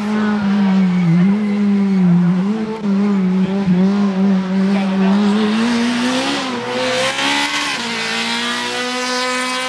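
Citroën C2 rally car's engine running at high revs at speed, its pitch wavering up and down with the throttle, then climbing and changing about two-thirds of the way through.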